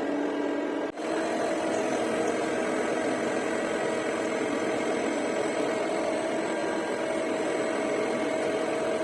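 CNC lathe running while turning a pin: a steady machine hum with a few held tones under a hissing noise, with a brief dropout about a second in.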